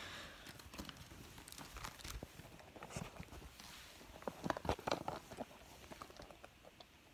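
Faint handling noise from a boxed toy and the phone being moved about: scattered taps, clicks and rustles, with a cluster of sharper knocks about four to five seconds in.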